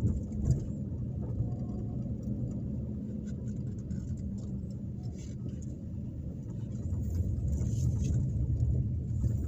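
Engine and road noise heard inside a moving car's cabin: a steady low rumble that grows louder about three-quarters of the way through.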